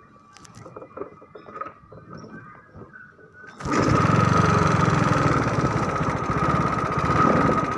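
Faint light clicks and knocks, then about three and a half seconds in a small engine comes in suddenly and runs steadily with a fast, even rattle.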